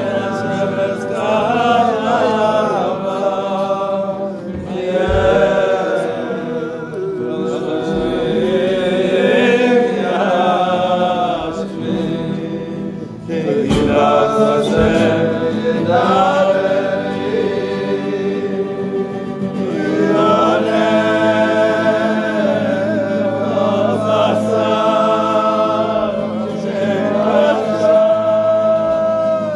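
A group of voices singing a Jewish niggun together at a kumzitz, in slow phrases with long held notes.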